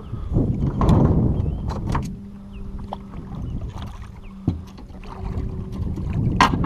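Rustling, handling noise and sharp knocks on board a small fishing boat while a caught catfish is landed and handled. A steady low hum runs underneath.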